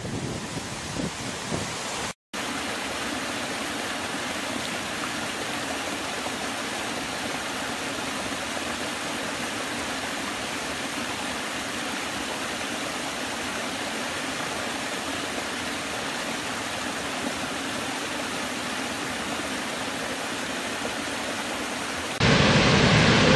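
Waterfall: a steady, even rush of falling water. A brief cut to silence comes about two seconds in, and the water sound is a little louder again near the end.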